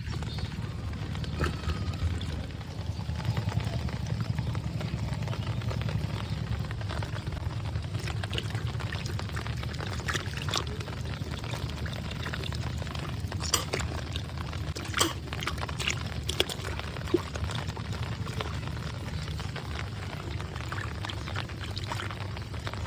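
Water pouring and gushing steadily, with a few sharp clicks or knocks in the middle stretch.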